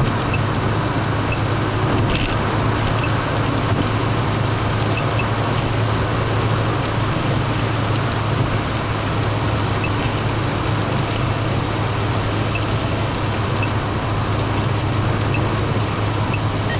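Steady in-car road noise from a car driving on an expressway: a drone of tyres and engine with a strong low hum. A few faint, short, high blips come at irregular intervals.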